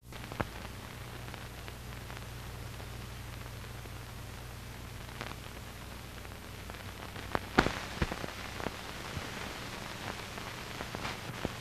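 Soundtrack noise of an old film print: a steady hiss and low hum with scattered clicks and pops, the loudest a little past seven and a half seconds.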